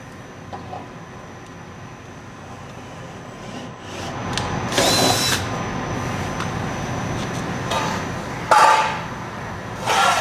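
Power drill running, starting about four seconds in, with a few short louder surges: tapping threads into the bus body's trim mounting holes.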